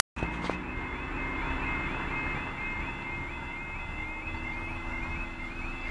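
Level crossing warning alarm sounding a rapid, repeating two-tone warble, about three cycles a second. It sounds as the crossing's amber light gives way to flashing red, signalling that the crossing is closing to road traffic.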